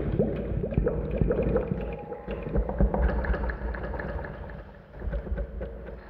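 Low rumbling ambient drone with faint creaking, gliding squeaks over it, slowly fading and dipping low about three quarters of the way through.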